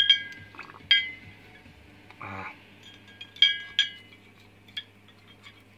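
Metal tweezers and small hydraulic valve-lifter parts clinking against the inside of a glass jar: a few sharp, ringing clinks at the start, about a second in, and a pair about three and a half seconds in.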